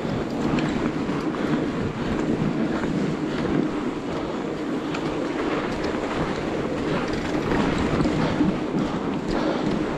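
Fatbike towing a two-roller snow trail groomer along a snowy trail: a steady rolling rumble from the tyres and rollers on snow, with scattered faint clicks.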